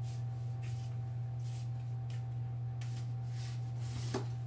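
A steady low electrical-type hum, with faint soft rustles every half second or so as someone moves about. A brief short sound comes about four seconds in.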